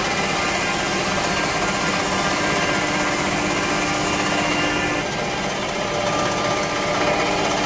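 CNC stone edge-grinding and polishing machine running steadily, with several held tones over a grinding hiss. The sound shifts abruptly about five seconds in, where the footage cuts to another shot.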